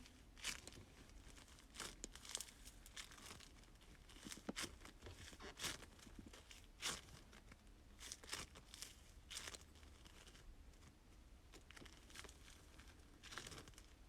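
Slime being squished and stretched by hand: faint, irregular crackles and pops, a few every second.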